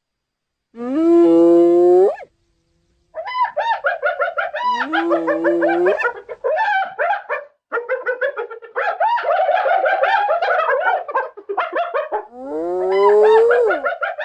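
Spotted hyena calling: a rising whoop about a second in, then long runs of rapid, high-pitched giggling, the hyena's 'laugh', broken by another whoop. Near the end comes a last whoop that rises and then falls.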